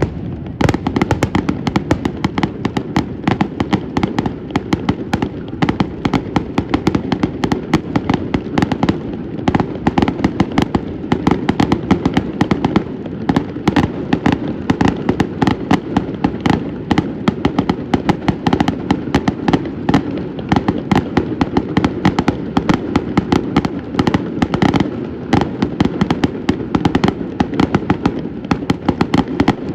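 Fireworks display: a dense, continuous barrage of rapid bangs and crackles with deep booms, many per second.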